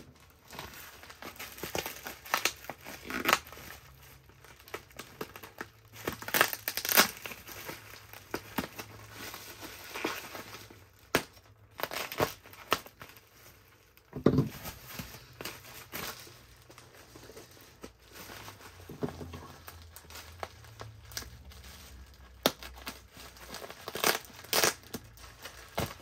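Packing material being handled and pulled away during an unboxing: irregular crinkling, rustling and tearing, with a dull thump about halfway through.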